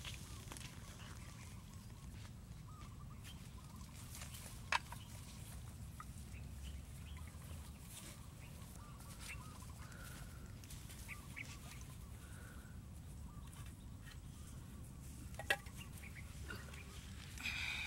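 Outdoor ambience: faint fowl-like calls and clucks over a steady low rumble, with two sharp clicks, one about five seconds in and one near the end, and a louder call just before the end.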